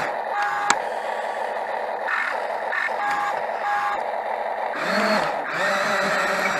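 Backup alarm of a construction machine beeping, a handful of short, unevenly spaced beeps over the steady running of a diesel engine; around five seconds in the engine note rises and falls briefly.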